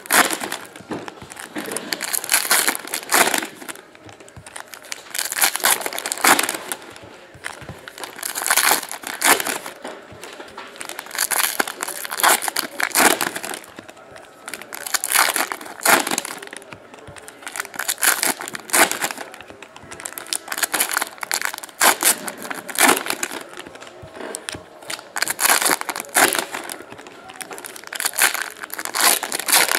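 Foil wrappers of Panini Prizm football card packs crinkling as the packs are torn open and handled, in repeated bursts every couple of seconds.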